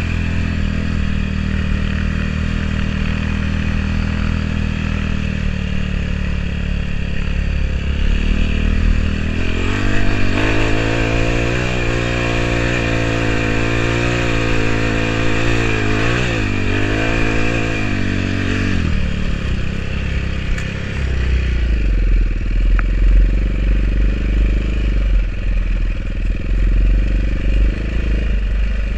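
Single-cylinder four-stroke enduro motorcycle engine running under a rider, its pitch rising and falling with the throttle through the middle of the stretch. After that it settles beneath a heavy deep rumble.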